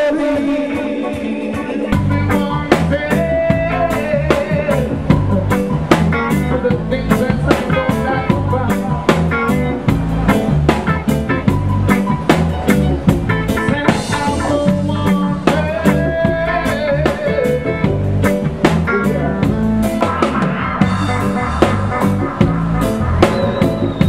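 Band music with a drum kit, bass and guitar. The bass and drums come in about two seconds in and keep a steady beat.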